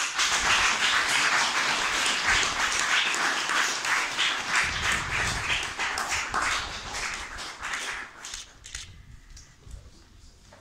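Audience applauding. The clapping is loud and dense at first, then dies away to a few scattered claps after about eight seconds.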